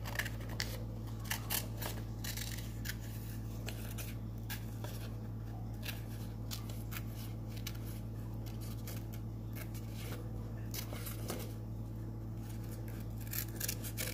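Scissors snipping through green construction paper in many short, irregular cuts as paper shapes are cut out, over a steady low hum.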